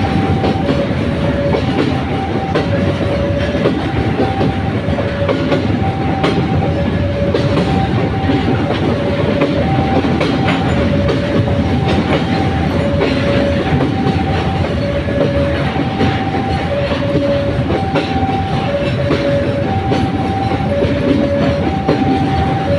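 Pertamina freight train rolling past with a steady rumble and the clickety-clack of wheels over rail joints. Over it runs a two-tone electronic warning that alternates evenly between a high note and a lower note without a break, typical of a railway level-crossing alarm.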